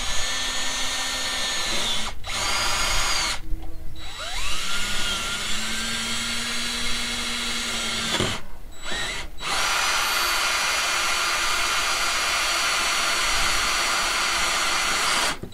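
Power drill boring a hole through a camper van's roof, running in several bursts with short pauses, several of them starting with a rising whine, and ending with a long steady run of about six seconds.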